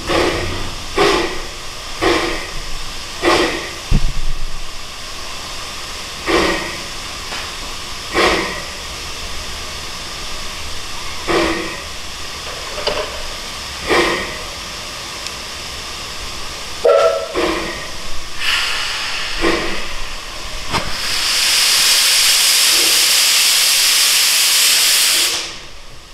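Puffing Billy's Garratt steam locomotive working slowly, its exhaust chuffs coming about a second apart at first and then spacing out to two or three seconds apart. About 21 seconds in a loud hiss of released steam starts, lasts about four seconds and cuts off suddenly.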